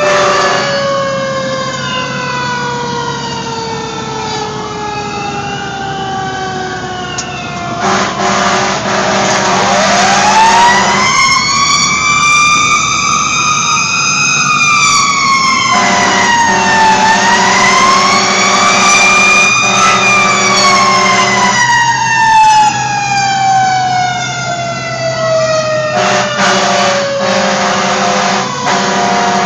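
Fire engine siren sounding while the truck responds, its pitch sliding slowly down, then rising again from about a third of the way in and falling away in a long sweep, with the truck's engine running beneath.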